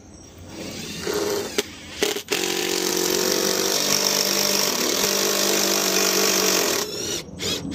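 Cordless driver driving a fastener through a metal wall-mount bracket into the wall. A brief start about a second in is followed by a steady motor run of about four and a half seconds, which stops near the end.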